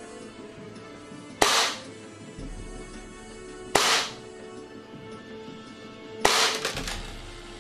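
Tokyo Marui Hi-Capa 5.1 Gold Match gas blowback airsoft pistol firing on green gas. It fires three single shots about two and a half seconds apart, each a sharp crack with a short tail; the last comes as a quick cluster of clicks.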